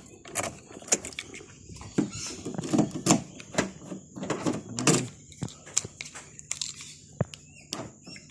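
Irregular clicks and knocks from a 2014 Suzuki Alto's door and locks being worked, with a faint steady hum in the second half.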